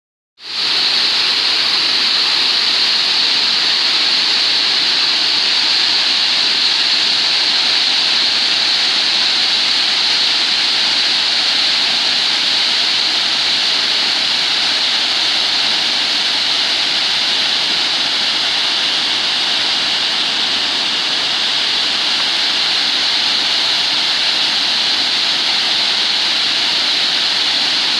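Waterfall: a steady, loud rush of falling water with no change in level.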